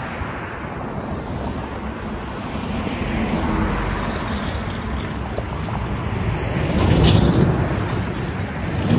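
Road traffic driving past: cars and a truck go by one after another, their tyre and engine noise swelling and fading with each pass. The loudest pass comes about seven seconds in.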